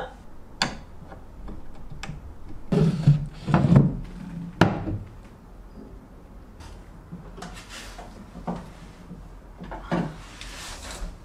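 Wooden cabinet parts being handled during flat-pack furniture assembly: scattered knocks and scrapes of wood, busiest a few seconds in, with a sharp click about four and a half seconds in.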